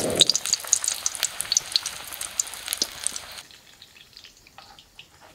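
Batter-coated green chillies (mirchi bhajia) deep-frying in hot oil in a wok, with a busy sizzle and crackle. About three and a half seconds in the sizzle drops away suddenly, leaving only faint crackles.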